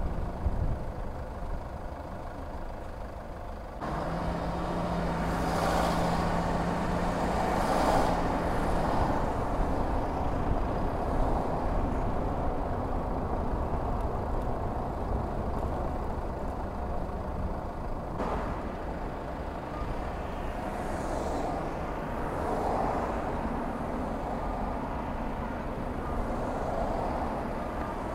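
Car driving on snow-packed city streets: steady low rumble of the engine and tyres, louder from about four seconds in. A steady low hum joins for about five seconds.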